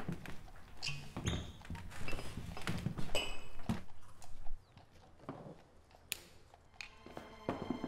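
Knocks and short ringing clinks of glasses and coins handled on a wooden bar counter, busy in the first half and quieter after about halfway, with one sharp click about six seconds in.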